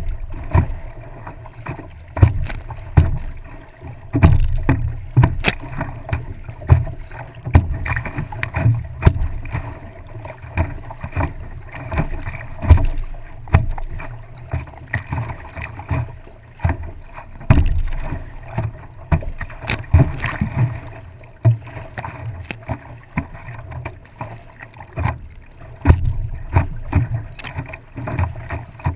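Choppy water splashing and slapping against the nose of a stand-up paddleboard as it is paddled, heard up close at water level, in irregular splashes over a low rumble.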